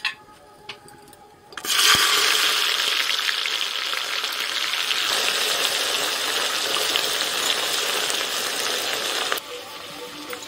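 Sliced onions hitting hot mustard oil in a pressure cooker, a loud sizzle that starts suddenly just under two seconds in and cuts off abruptly near the end. A few light clicks come before it.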